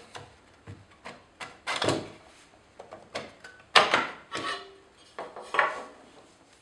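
Metal case of a PC Engines APU2C4 router board being forced open by hand: the lid scrapes and clicks as it is worked loose and slid off, with louder scrapes about two seconds in and near four seconds.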